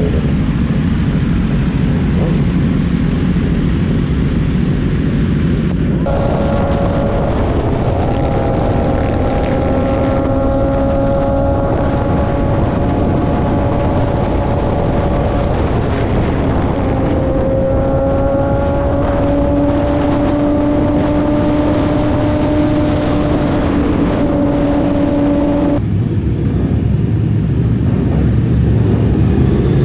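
Motorcycle riding at speed: the engine runs steadily under wind rush, its note climbing slowly as it pulls. The sound changes abruptly twice, at cuts between shots.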